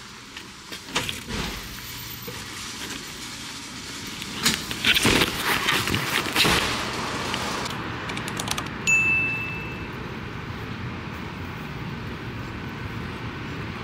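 Knocks and clatter of a handheld camera being carried by someone walking, loudest about four to six seconds in, then a single short electronic beep about nine seconds in.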